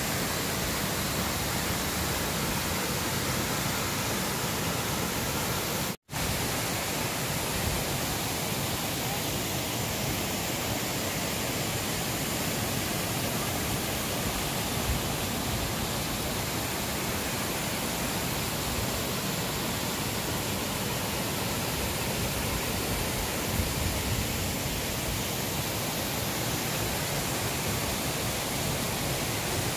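Tangle Falls cascading over rock: a steady rush of falling water that cuts out for an instant about six seconds in.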